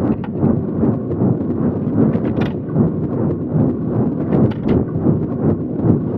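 Train running on the track: a steady low rumble with irregular metallic clinks and clacks from the track.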